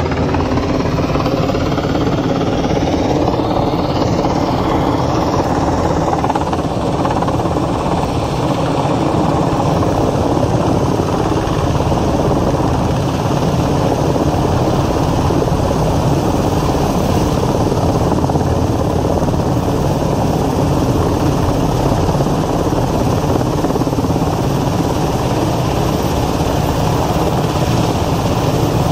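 Helicopter hovering overhead with a load slung on a long line, its rotor and engine noise loud and steady, the pitch sliding slightly in the first few seconds.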